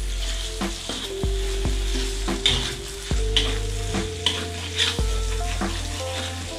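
Ground spice paste sizzling as it is sautéed in a wok, stirred with a metal spoon that scrapes the pan repeatedly, about once or twice a second.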